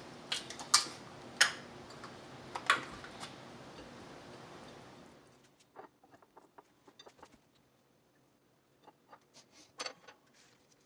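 Irregular sharp clicks and taps of kitchen utensils and dishes being handled during food prep. The loudest come in the first three seconds over a steady background hiss that fades out about five seconds in; fainter scattered ticks follow, with one louder click near the end.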